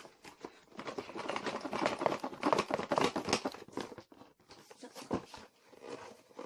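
Packaging rustling and crinkling as it is handled, a busy stretch of rapid crackles from about one to four seconds in, then sparser rustles.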